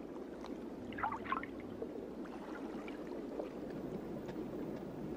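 Underwater ambience: a steady low watery wash, with a few faint bubbling sounds about a second in.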